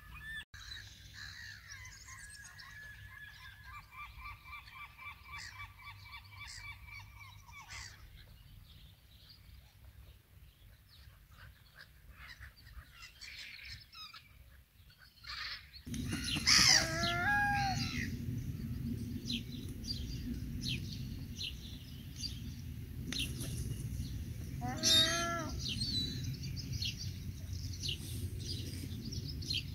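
Gulls calling: faint calls at first, then two loud, drawn-out calls falling in pitch, one about halfway through and one near the end, over a low steady rush.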